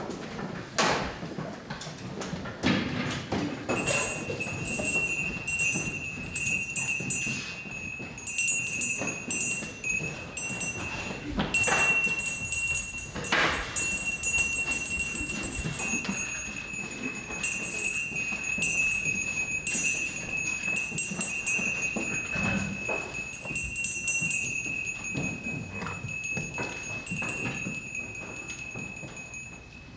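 A single high ringing tone, held steady with a slight waver from about four seconds in, over scattered knocks and clatter.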